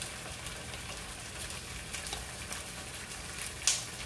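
Sliced onions frying in oil in a pan: a soft steady sizzle with scattered small crackles and one louder pop near the end.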